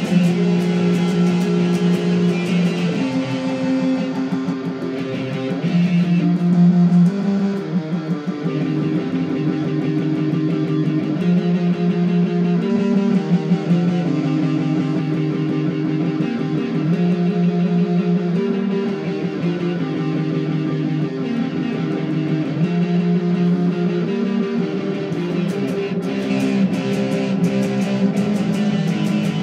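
Guitar music, with chords held and changing every second or two.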